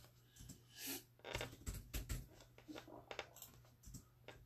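Faint, irregular typing on a keyboard: scattered light clicks and taps, over a low steady hum.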